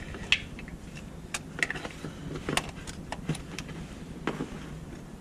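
Irregular metallic clicks and knocks as an oil filter wrench grips and turns the oil filter loose under the car.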